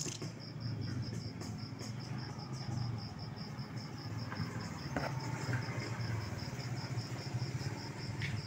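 An insect chirping steadily in a fast, even, high-pitched pulse of about five chirps a second, over a low steady rumble.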